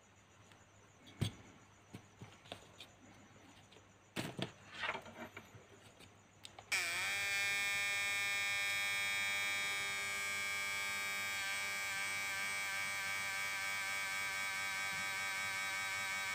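A few clicks and handling knocks, then about seven seconds in a homemade 12 V to high-voltage oscillator inverter for fish shocking is switched on and buzzes steadily and loudly, its pitch dipping briefly as it starts before settling.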